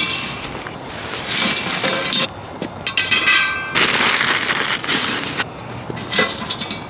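Handling sounds at a stainless-steel fire pit: metal clinks and a brief ringing of the steel, rustling of the kindling sticks and paper, and clanks as the metal flame ring is set onto the rim near the end.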